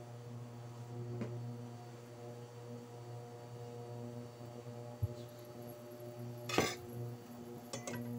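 Steady electrical hum of a running induction cooker, with a utensil stirring in a stainless steel pot. There are light clinks against the pot, the loudest about six and a half seconds in, and a few more near the end as a glass lid is set on.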